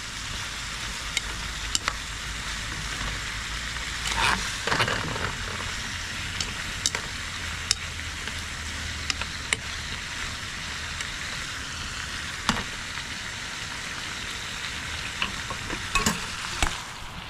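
Gopchang sizzling steadily in a pan over low heat. Sharp clicks and scrapes of a cooking utensil break in now and then, thickest about four seconds in and again near the end.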